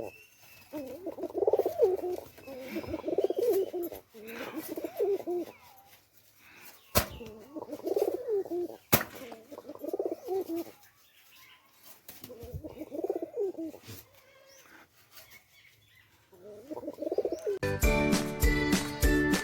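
Pigeons cooing: a run of warbling coos, phrase after phrase with short pauses, broken by two sharp clicks midway. Jingly music starts near the end.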